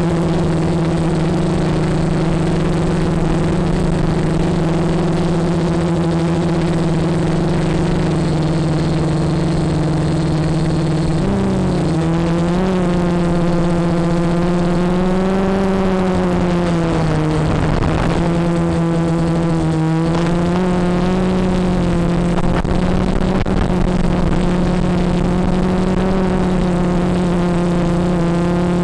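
Electric motors and propellers of a radio-controlled aircraft, heard from its onboard camera: a steady, loud hum that wavers up and down in pitch from about eleven seconds in as the throttle changes, dipping briefly with a rush of air before settling again.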